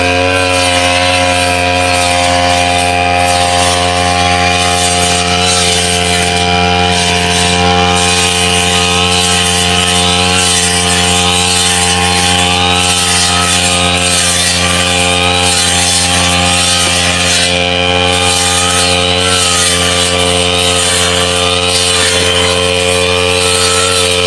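Backpack brush cutter engine running at a steady high speed while its cutting head mows through tall wet grass.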